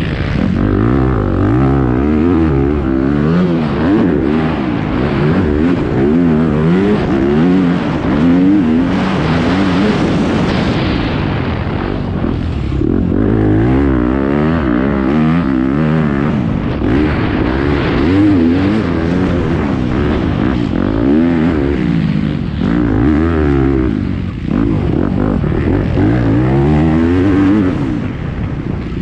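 Dirt bike engine heard from the rider's helmet, revving up and dropping back again and again as the rider accelerates out of corners and shifts through the gears at racing pace.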